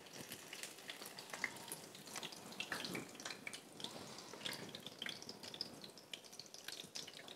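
Faint crackling of a brick pastry frying in hot oil, with scattered small pops.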